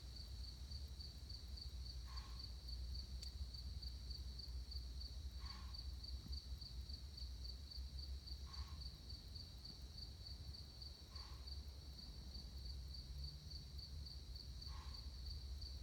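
Night insect chorus: a steady, high, rapidly pulsing trill. A faint short call repeats about every three seconds over a low rumble.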